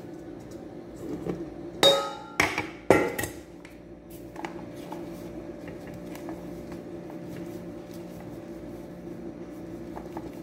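Three ringing metal clanks in quick succession about two seconds in, a metal bowl knocked against the counter, followed by a steady low hum.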